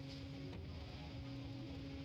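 Sawmill machinery running with a steady buzzing hum, with a faint tick at the start and another about half a second in.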